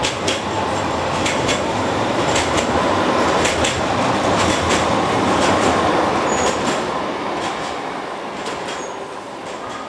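Istanbul T1 street tram passing close by: rolling wheel noise that swells to its loudest around the middle and then fades away, with a run of sharp clacks from the wheels over the rails and a couple of brief high wheel squeals.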